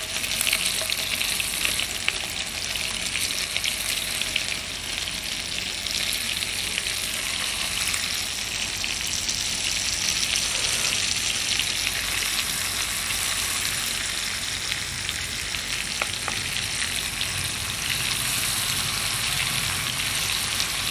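Marinated chicken legs frying in hot melted butter in a pan: a steady sizzle with a fine spattering crackle.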